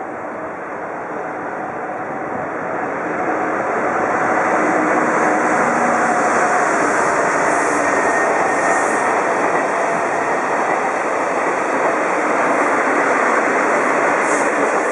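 DD51 diesel-hydraulic locomotive passing through a station at speed with its diesel engines running, followed by a rake of 12 series passenger coaches rolling past on steel wheels. The sound builds over the first few seconds and then stays loud and steady as the coaches go by, with the rear DD51 pushing at the other end.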